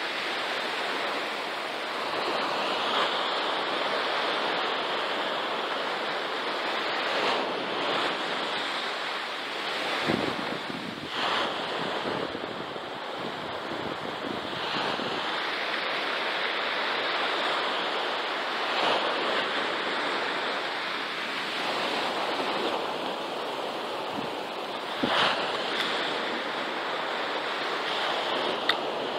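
Surf breaking and washing up a sandy beach in steady waves, with wind buffeting the microphone. A few brief knocks and a sharp click near the end.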